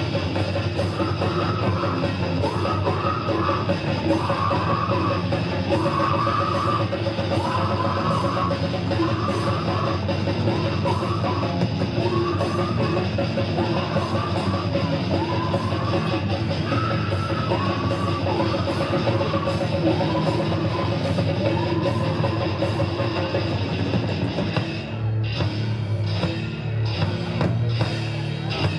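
Death metal band playing live at full volume: distorted electric guitars, bass and drum kit with cymbals, with a repeating guitar figure over a dense wall of sound. Near the end the song drops into a sparser, lower section.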